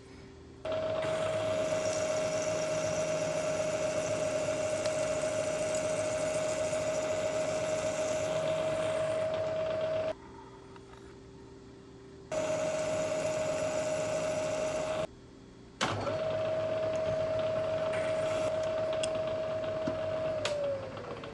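Bridgeport vertical mill's spindle running with a steady hum while an end mill in a drill chuck bores holes in steel vise jaws. It runs in three stretches with quieter gaps between them, and near the end the hum falls in pitch as the spindle is switched off and winds down.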